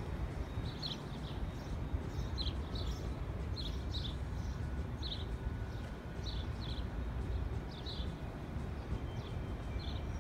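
Outdoor city ambience: a steady low rumble of wind or distant traffic, with short high-pitched chirps, often in pairs, repeating about once a second.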